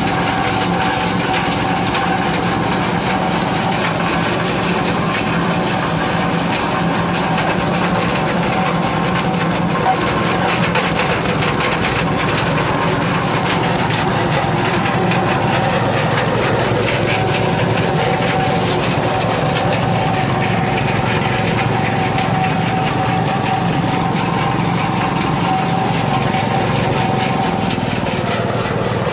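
Coconut-husk grinding machine (cocopeat and cocofiber mill) running steadily, its motor and rotor making a constant drone.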